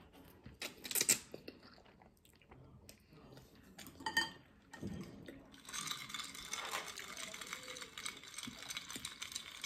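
Quiet eating sounds: ramen noodles slurped and chewed, and chopsticks knocking against a ceramic bowl. From about halfway there is a faint steady hiss.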